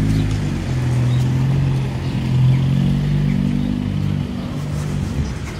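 An engine running with a steady low hum that swells slightly about halfway through and eases off near the end.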